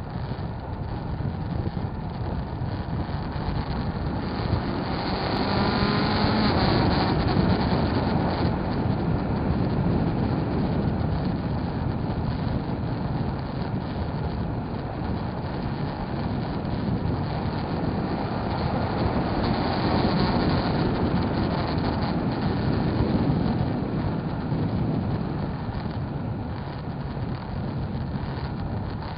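Motorcycle being ridden, its engine running under a rush of wind noise; about five seconds in the engine pitch climbs as it accelerates, and the sound swells again a little before the end.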